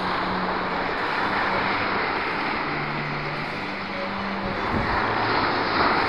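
Sea waves breaking and washing up a sandy beach: a steady rush of surf that swells toward the end as a wave breaks.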